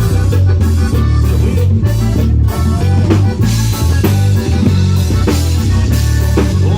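Live band playing an instrumental passage: drum kit keeping a steady beat under a bass line and guitar, with no singing.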